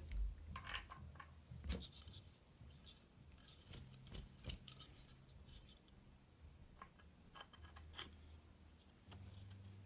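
Faint scattered taps, clicks and light scrapes of a wooden rifle stock fore end being handled and fitted by hand in a dry fit.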